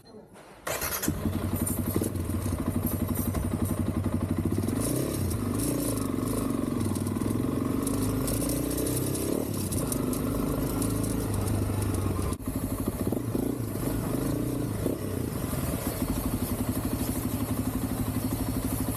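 A motor starts abruptly about a second in and runs steadily, its pitch wavering for a few seconds in the middle.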